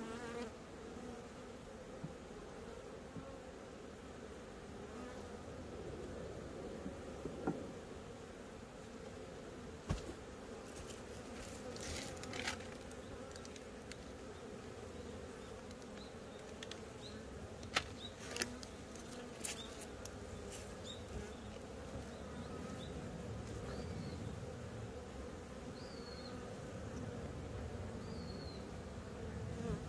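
Honeybees buzzing around their hive, a steady hum throughout, with a few sharp clicks and ticks scattered through it.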